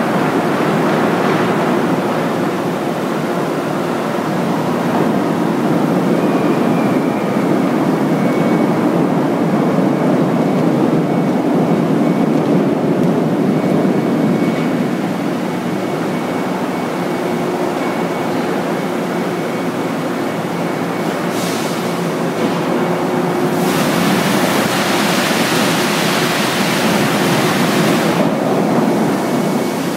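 Hot steel rolling mill running: a loud, steady rumble of the rolling stand and roller table as a glowing slab is rolled, with a faint steady whine. From about two-thirds in, a loud hiss of water spray and steam joins for several seconds.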